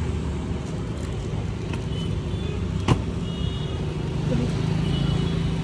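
Car traffic on a street: engines of cars running and passing close by as a steady low rumble, with one sharp click just under three seconds in.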